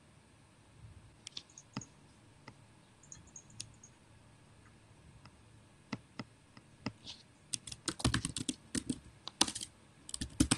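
Computer keyboard: a few scattered key clicks, then a burst of rapid typing from about seven and a half seconds in, a short pause, and typing again near the end.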